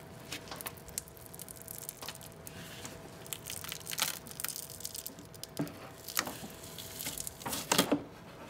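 The seal on a 1990 Ford Bronco's blower motor flange crackles and tears as the motor is pried and twisted loose from its housing. Scattered light clicks and knocks come through, with louder ones about four seconds in and near the end.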